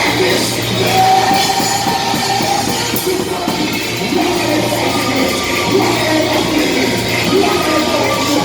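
Music with singing, loud and steady, over a steady low hum.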